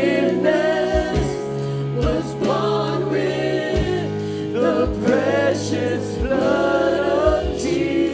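Live worship band playing a slow gospel worship song: several women sing into microphones over bass guitar, keyboard and occasional drum hits.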